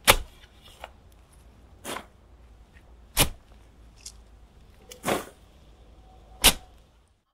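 Shovel digging into earth: five sharp strikes, about one every one and a half seconds, over a faint low rumble.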